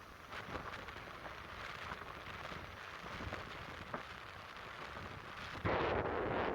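Atlantic surf washing on the beach, a steady rushing hiss with light crackling fizz. Near the end a much louder rush of noise sets in suddenly and stays.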